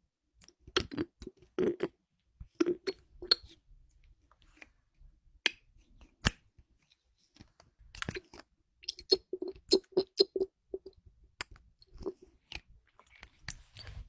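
Close-miked object handling for ASMR: irregular sharp clicks and short squishy, crackly bursts, with a quick run of soft sticky pops near the end.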